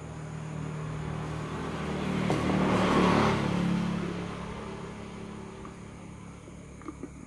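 A road vehicle passing by, its engine and tyre noise growing louder to a peak about three seconds in, then fading away.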